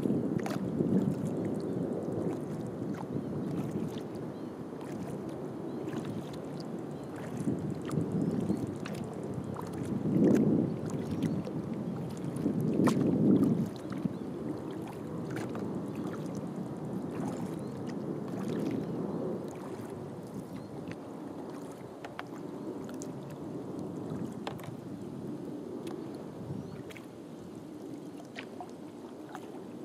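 Kayak being paddled: water swishing and splashing around the paddle and hull in uneven swells, with scattered small drips and ticks. It is loudest about ten and thirteen seconds in.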